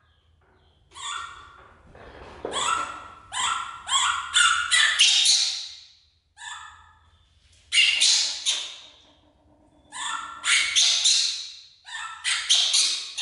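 Baby macaque calling over and over in high-pitched cries, in several bouts with short pauses between them.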